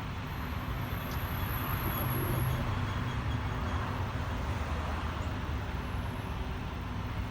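Steady outdoor traffic noise: a low road rumble that swells a little about two seconds in, as if a vehicle is passing.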